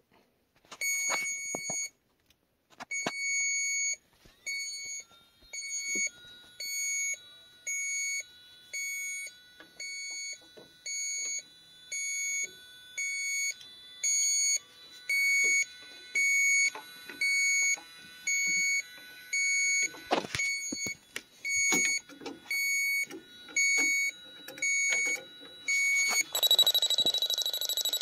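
Electronic refrigerant leak detector (electrolyte-sensor sniffer) giving short, high beeps about once a second as it warms up. Near the end it switches to a louder, continuous shrill alarm, its signal that it has picked up refrigerant at the coil leak.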